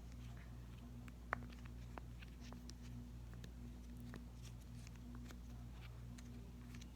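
Silicone pop-it fidget toy having its bubbles pressed one after another on its weaker-popping 'bad side', giving soft, irregular little pops, with one sharper pop about a second in.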